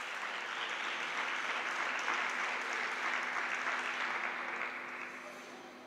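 Spectators applauding, fading away over the last second or so.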